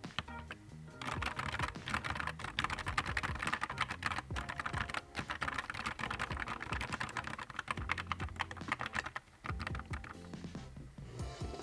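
Fast typing on a Nuphy Air 75 V2 low-profile mechanical keyboard, a quick run of key clicks that starts about a second in and stops shortly before the end, over background music.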